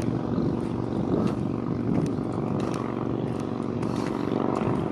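A steady engine drone, holding one pitch, with a few faint knocks over it.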